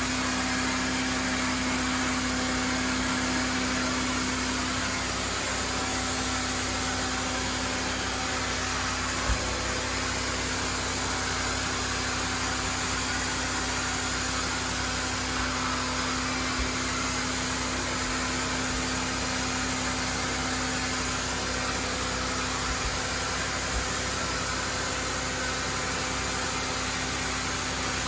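Carpet-cleaning machinery running steadily: an even rushing noise with a low hum, typical of hot-water-extraction vacuum and agitation equipment at work. A few faint knocks sound through it.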